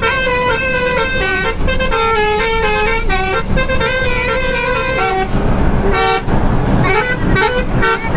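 A Harkat Jaya bus's telolet horn, a set of electric horns played in sequence, sounding a stepping multi-tone melody. About five seconds in it breaks into short, repeated blasts. Bus engine and road noise run underneath.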